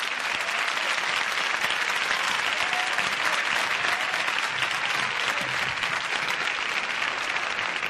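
Large studio audience applauding, a dense, steady clapping.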